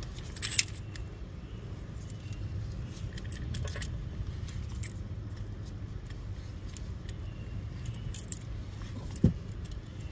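Light metallic clicks and clinks of a disc brake caliper piston rewind tool being turned by its T-handle, as the rear caliper piston is screwed back in while it rotates. A sharper clack comes about half a second in and another near the end, over a steady low rumble.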